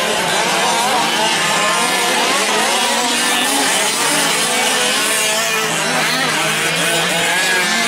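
Several 5th-scale gas RC trucks' small two-stroke engines running together, many overlapping engine notes rising and falling as the trucks rev and ease off around the track.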